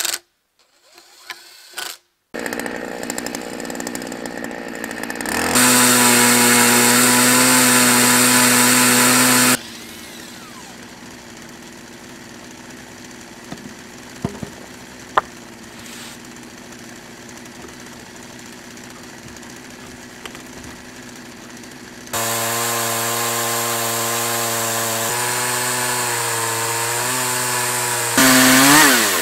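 Gas chainsaw milling a log into lumber: it runs at full throttle through the cut for about four seconds, drops back to idle for a long stretch, then goes to full throttle again, revving up briefly just before the end.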